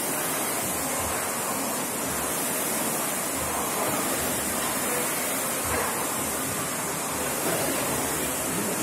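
Several air-resistance rowing machines running, their flywheel fans making a steady whooshing rush.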